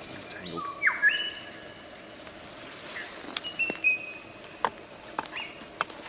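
Superb lyrebird song: short held whistles, a quick steep downward sweep about a second in, then more brief whistles mixed with several sharp clicks.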